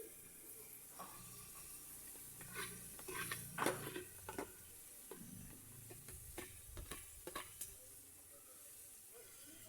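Scrambled eggs sizzling in a frying pan as they are stirred, with a spoon scraping and knocking against the pan in several short clusters.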